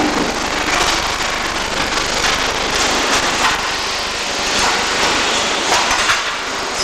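Electric arc welding: a steady crackling hiss full of small irregular pops.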